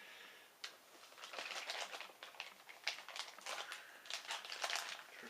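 Packaging being handled and pulled open: irregular crinkling and rustling with a sharp click a little over half a second in.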